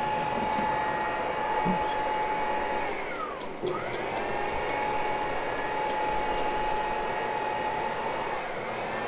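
Hoover Hushtone upright vacuum cleaner running with a steady motor whine; about three and a half seconds in its pitch drops sharply and climbs back up, and dips slightly again near the end.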